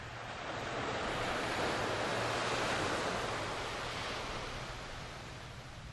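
Ocean surf breaking on a sandy beach: a rush of wave noise that swells about a second in and slowly fades toward the end.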